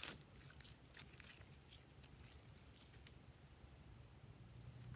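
Faint sticky clicks and crackles of glossy slime being squeezed and stretched by hand, scattered mostly through the first three seconds.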